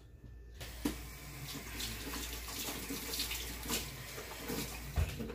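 Kitchen tap running into the sink for about four and a half seconds, starting about half a second in, with a sharp knock just before the end.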